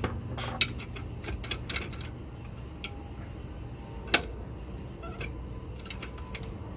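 Small metallic clicks and taps of parts being worked loose by hand on a Kodiak jet pump's steering linkage, with two sharper clicks, about half a second in and about four seconds in, over a low steady hum.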